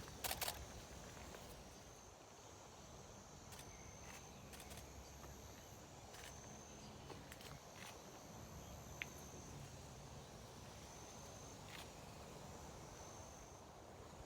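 Faint insects trilling in high, repeated phrases about a second long, over a low background rumble. A few sharp clicks, the loudest cluster just after the start.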